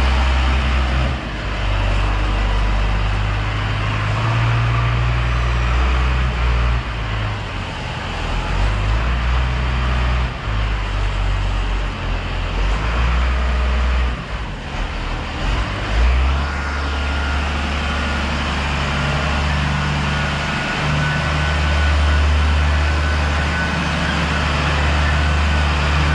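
Engine of heavy farm machinery running, a loud low hum whose pitch jumps abruptly several times in the first sixteen seconds and then holds steadier.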